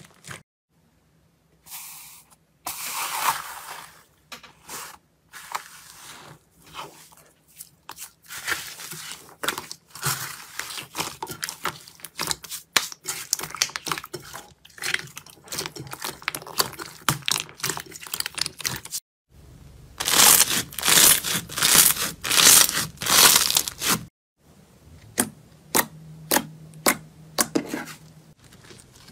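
Slime being squeezed, stretched and pressed by hand: dense, sticky crackling and popping, broken by a few short pauses, loudest in a run of crackles a little past the middle.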